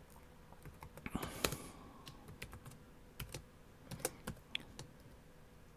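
Typing on a computer keyboard: a run of irregular keystroke clicks as a command is entered.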